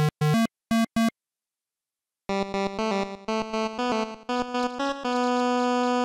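Synthesizer music: a few short staccato notes, about a second of silence, then a quick run of notes ending on a long held note.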